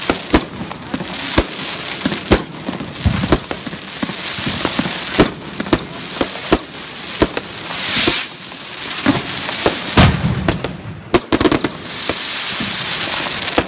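Fireworks going off: a dense, irregular run of bangs and pops over continuous crackling. A hiss swells up about eight seconds in, and a heavy bang follows about ten seconds in.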